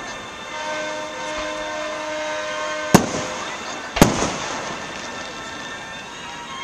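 Aerial fireworks shells bursting: two loud bangs about a second apart, around three and four seconds in, each followed by an echoing tail.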